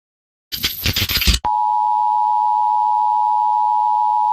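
A harsh burst of static-like noise lasting about a second, then a loud, perfectly steady two-pitch tone: the Emergency Alert System attention signal.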